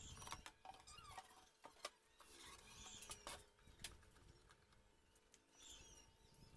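Near silence, with a few faint clicks and light knocks and a few faint high squeaky chirps.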